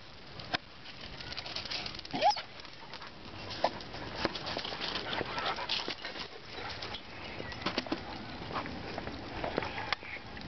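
Camera handling noise: scattered clicks and knocks, with a brief rising chirp-like call about two seconds in.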